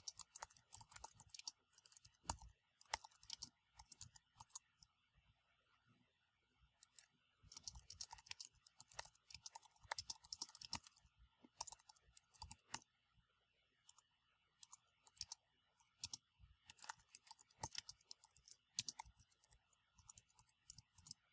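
Faint typing on a computer keyboard: rapid keystroke clicks in bursts, broken by a couple of short pauses.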